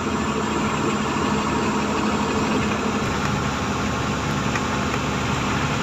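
Loaded goods truck cruising on a highway, heard from inside the cab: a steady mix of engine hum and road noise.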